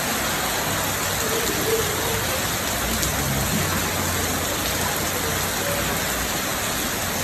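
Steady rain falling, an even, unbroken hiss of rain on surfaces.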